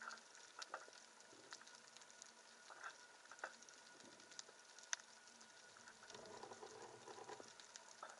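Faint underwater ambience: scattered sharp clicks and crackles over a low hiss, with a brief fluttering patch about six to seven seconds in.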